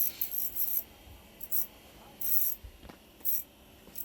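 Ice fishing reel being cranked in short spells, giving about five brief, high scratchy clicking bursts.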